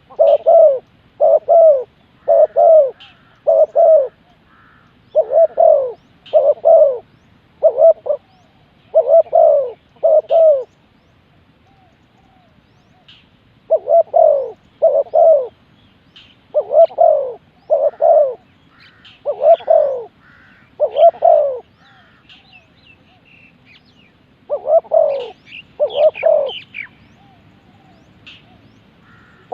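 Spotted dove cooing: runs of short, low coos, several to a run, separated by pauses of a few seconds. Faint high chirps of other small birds sound above them.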